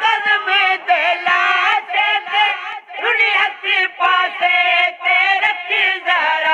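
Male voice singing a noha, a Shia mourning lament, in a long wavering line with frequent short breaks.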